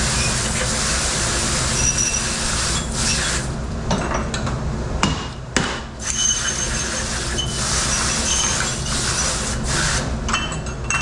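Dishes clinking and knocking in a commercial dish room, with short ringing clinks throughout and two sharp knocks about halfway through, over a steady hiss and machine hum.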